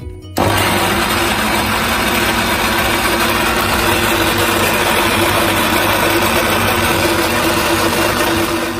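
Tefal Blendforce 400 W countertop blender running, grinding red onion, chillies and garlic into a spice paste. It starts about half a second in, runs steadily at one speed and cuts off near the end.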